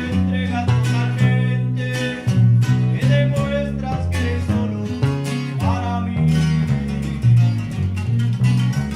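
Regional Mexican band music: guitars strummed and plucked over a bass line that moves from note to note.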